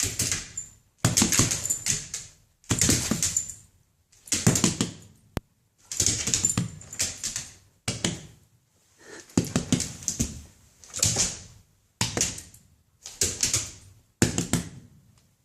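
A puppy's claws tapping rapidly on the floor as it prances in place. The taps come in about ten quick flurries, each roughly a second long, with short pauses between them.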